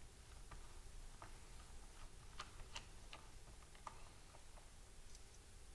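Faint, irregular small ticks and clicks of a screwdriver working a tiny retaining screw out of a laptop's drive bay.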